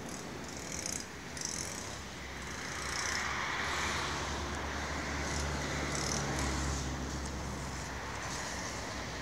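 Road traffic: a motor vehicle's engine and tyre noise swells from about three seconds in and fades after about seven.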